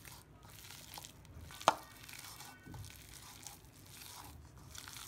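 Hand mixing sliced onions into thick gram-flour batter in a bowl for onion pakoda: faint, uneven squishing and rustling, with one sharp click just under two seconds in.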